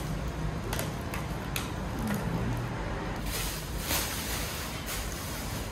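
Clear plastic packaging wrap rustling and crinkling as it is pulled off a folding wheeled cart, with a few short knocks and crackles from handling the cart's metal frame.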